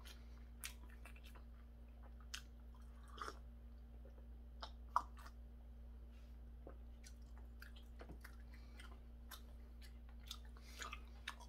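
Quiet chewing of a mouthful of triangle kimbap (seaweed-wrapped rice), with scattered small mouth clicks and smacks over a faint steady hum.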